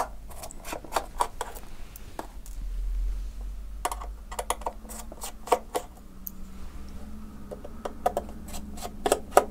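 Irregular light clicks and ticks of a small screwdriver working out the tiny screws that hold a laptop's LCD panel in its display lid, with a few sharper clicks near the end.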